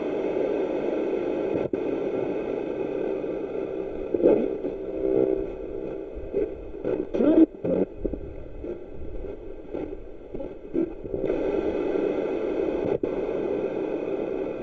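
Spirit box, a radio sweeping through stations, giving out a steady hiss of static with short snatches of broadcast sound breaking through about four and seven seconds in.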